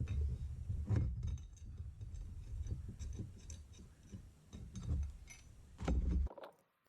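Hands working metal roof-rack bracket hardware, fitting bolts and lock nuts: small clicks, scrapes and rubbing with low bumps, cutting off suddenly near the end.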